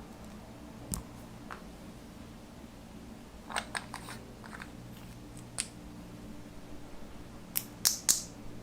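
Slime being pressed and worked by hand, giving a scattered run of short, sharp crackles and clicky pops, with a cluster in the middle and the loudest two pops near the end, over a faint steady hum.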